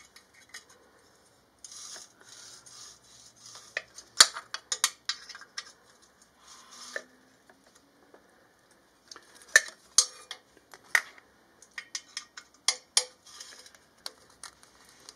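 An Allen key clinking and scraping in a rusty exhaust header bolt on a Suzuki Hayabusa as the bolt is turned out. It is a run of sharp metallic clicks and short scrapes. The bolt is almost finger tight, so it comes undone with no strain.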